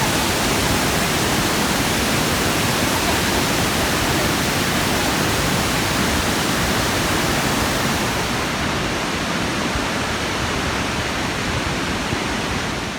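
Steady rushing of Kalandula Falls, a 105-metre, high-volume waterfall on the Lucala River, heard as an even, loud wash of water noise; its hiss thins out in the top range about two-thirds of the way through.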